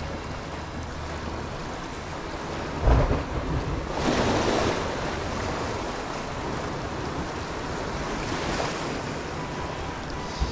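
Small sea waves washing and splashing against a concrete breakwater wall, with wind buffeting the microphone. A low thump comes about three seconds in, and a louder surge of surf about a second later.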